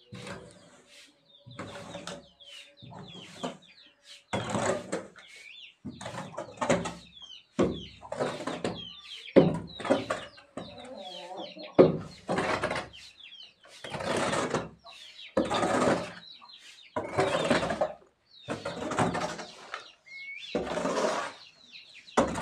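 A long-handled hoe scraped across a dirt floor in repeated strokes, roughly one a second, gathering leftover fodder and soil.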